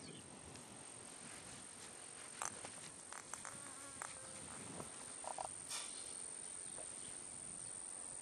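Quiet outdoor air with a steady high-pitched hum, broken by a couple of soft, short taps of a golf club against the grass or ball, about two and a half seconds in and again near six seconds.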